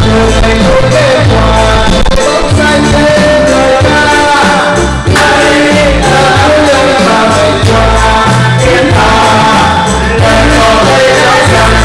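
Background music: a song with a singing voice over a steady bass line.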